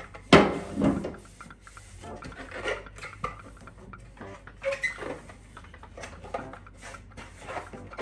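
Plastic refrigerator shelves and trays being handled and dried with a cloth at a dish rack: a sharp knock near the start and a second just after, then scattered light clicks and cloth rubbing.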